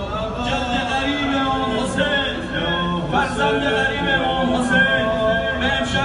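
Unaccompanied voices singing a mournful funeral lament, carrying on without a break.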